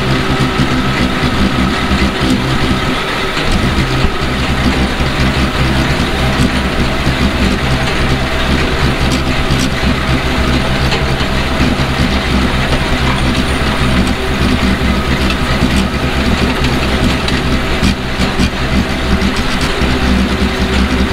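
John Deere 7730 tractor's six-cylinder diesel engine running steadily under load while baling hay.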